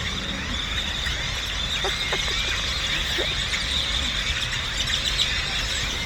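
A large flock of birds calling all at once: a dense, steady chorus of overlapping squeals, whistles and chirps.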